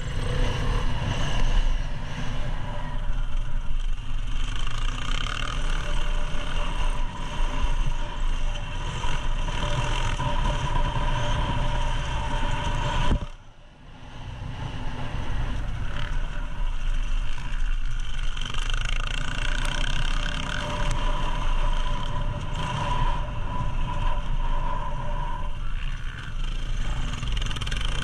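Dirt bike engine revving up and down as the rider accelerates and brakes along a dirt track, with wind rumble on the bike-mounted microphone. The sound drops out sharply for a moment about halfway through, then comes back.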